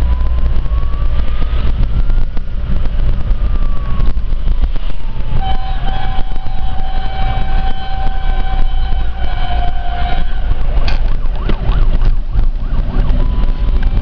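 Fire truck siren on an emergency run, heard through an open car window: a slow wail that rises and then falls over about five seconds, then a steady held tone for about five seconds. Heavy wind buffeting on the microphone runs underneath.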